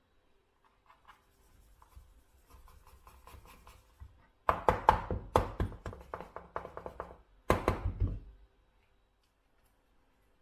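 A kitchen utensil scraping and tapping against a container in quick repeated strokes, about four or five a second. The strokes start faint and scattered, turn loud about halfway through, and come back in one short burst near the end.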